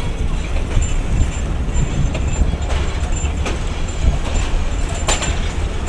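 Passenger train running on the track, heard from aboard: a steady low rumble with a few sharp clacks from the wheels.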